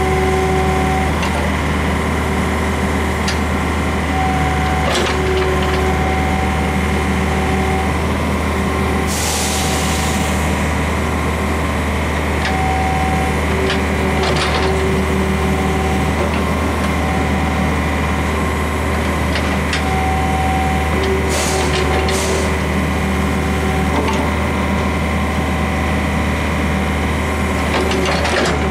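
Daewoo S55V mini excavator's diesel engine running steadily as the boom and bucket are worked, with a hydraulic whine that comes and goes as the controls are moved. A few sharp clanks from the bucket and linkage and a brief hiss are heard along the way.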